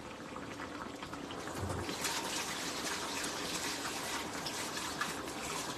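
Bubbling and crackling from a pan of tomato sauce with red mullets cooking on high heat and a pot of pasta water at the boil, getting louder about two seconds in.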